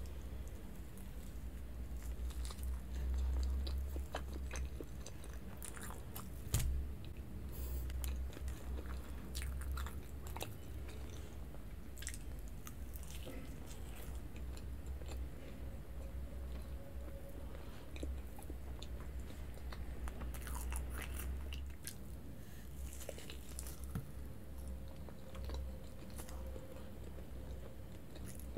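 Close-miked mouth sounds of a person biting into and chewing a slice of cream sponge cake, with many small wet clicks throughout.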